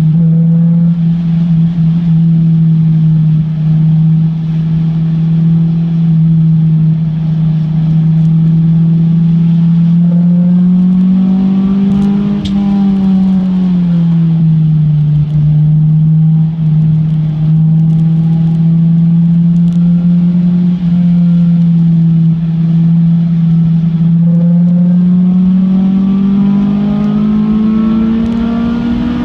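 Honda S2000's four-cylinder engine running hard under load, heard from inside the cabin. The revs hold steady, rise and drop back about halfway through, then climb steadily near the end as the car accelerates.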